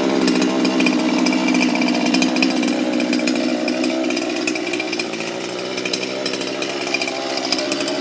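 A small engine running steadily, easing off a little about five seconds in.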